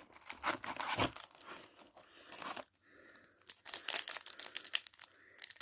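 Foil Yu-Gi-Oh! booster pack wrapper crinkling and tearing as it is worked open by hand, in crackly bursts with a short pause a little before the middle.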